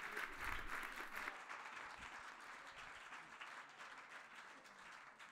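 Audience applauding: dense clapping for about the first second, then thinning out and dying away over the next few seconds.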